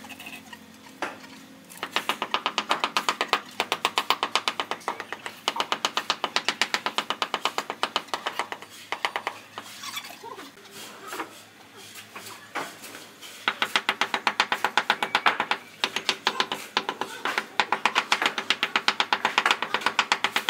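Rapid runs of sharp taps, about seven a second, as the butt of a wooden hammer handle knocks a ceramic floor tile down into its mortar bed, with a pause in the tapping in the middle.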